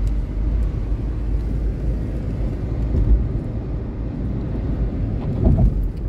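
Steady low rumble of a car driving at highway speed, engine and tyre noise heard from inside the cabin.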